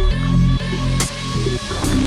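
Background electronic music: sustained bass and synth notes with a lighter beat, the kick drum dropping out and coming back near the end.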